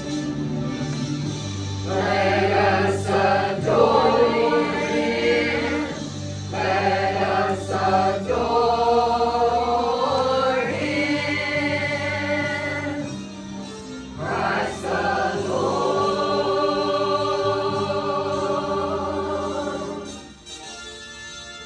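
Church choir singing a Christmas carol in long held phrases with short breaks between them, over low sustained accompaniment notes; the singing drops away near the end.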